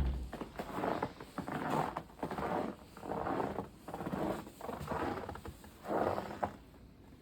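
Footsteps crunching and squeaking through snow, about one step a second, stopping shortly before the end.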